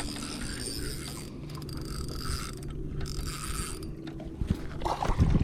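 Fishing reel being cranked to bring in a hooked fish, the winding coming in short spells with brief pauses.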